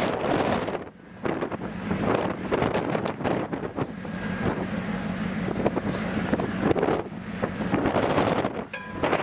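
Wind buffeting the microphone in uneven gusts on a ship's open deck, over a steady low hum from the vessel.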